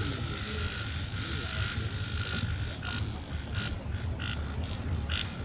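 Chorus of frogs calling in a marsh at night: repeated calls, longer ones at first, then shorter and quicker ones from about three seconds in, over a low steady rumble.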